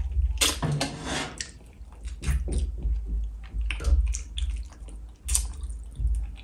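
Close-miked wet chewing and lip-smacking of a person eating fish and rice by hand, in irregular smacks and clicks. There is a longer noisy stretch about half a second in.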